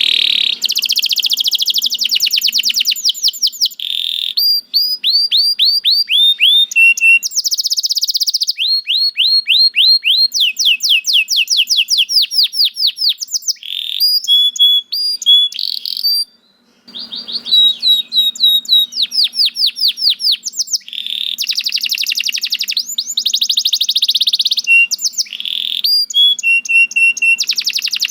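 Domestic canary singing a long, fast song of trills and rolls: quick runs of repeated notes, many sweeping down in pitch, with a short pause a little past halfway.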